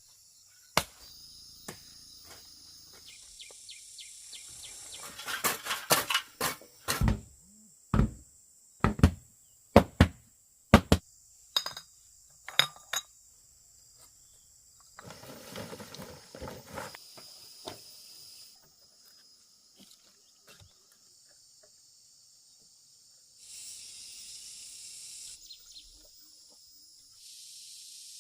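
A run of sharp, loud knocks, about one a second for several seconds, like a hand tool striking. Insects buzz steadily in the background, swelling louder near the end.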